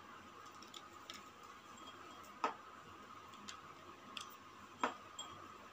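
Faint, irregular light clicks and taps as chopped pistachios are sprinkled by hand onto kulfi mixture in clay pots, two of them a little louder about two and a half and five seconds in, over a faint steady hum.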